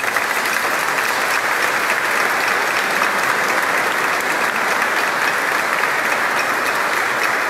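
Church congregation applauding: dense, steady clapping from a crowd.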